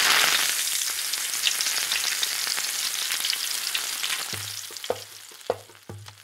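Hot oil sizzling and crackling, starting abruptly and fading away over about four seconds. Near the end a low hum comes in with a few short, sharp hits.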